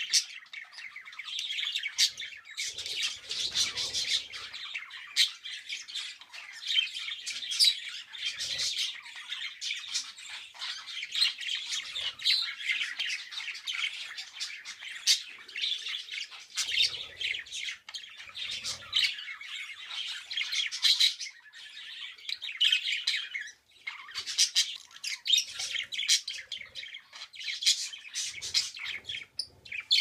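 Pet budgerigars chattering and squawking in a near-continuous stream of warbles and chirps, with many sharp clicks mixed in, breaking off briefly about three-quarters of the way through.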